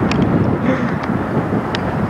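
Wind buffeting the camcorder microphone: a steady, wavering rumble, with a few faint clicks.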